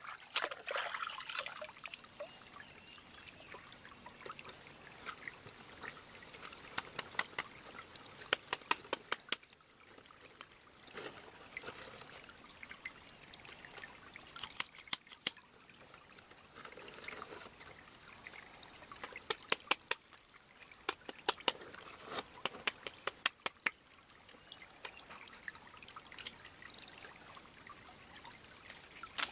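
Plastic toy parts and packaging being handled: soft rustling with several bursts of quick, sharp clicks.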